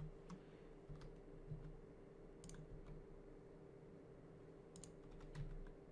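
A few faint, scattered clicks of computer keys and a mouse: a quick pair about two and a half seconds in and another pair near the end, over a faint steady hum.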